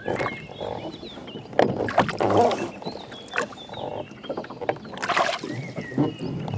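Oar strokes in lake water beside a rowboat: two splashy strokes, about two seconds in and again about five seconds in, with water lapping between them. Birds chirp throughout.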